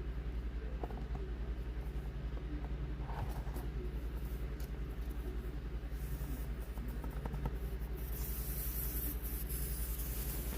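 Air hissing out of a small puncture in an inflated RC airplane tire, starting about eight seconds in, over a steady low hum.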